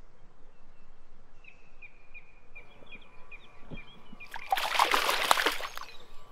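A grass carp being released into a lake, splashing the water as it kicks away: one loud splash about four seconds in, lasting about a second and a half.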